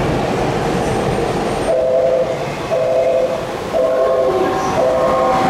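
A repeating two-note electronic warning tone, about once a second, starting a couple of seconds in, over the steady noise of trains as a non-stopping train approaches the platform.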